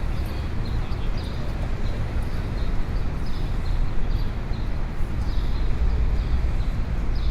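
Busy city street ambience: a steady low rumble of traffic and crowd, with walking footsteps on pavement clicking about two or three times a second.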